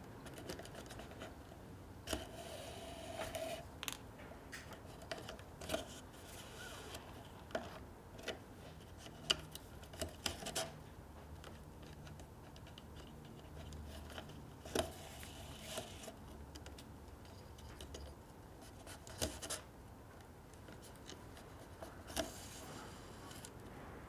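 Hand-stitching leather: a needle and thread drawn through the stitching holes, heard as irregular small clicks and short scratchy rasps.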